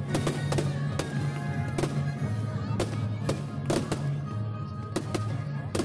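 Fireworks going off in an irregular series of sharp bangs, about two a second, over loud music with a steady bass.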